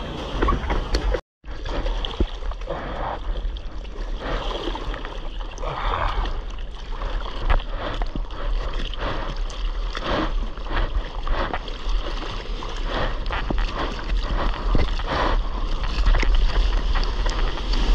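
Seawater rushing and splashing around a surfboard carrying an action camera close to the surface, with many irregular splashes over a steady wash and a low rumble. The sound cuts out completely for a moment just after a second in.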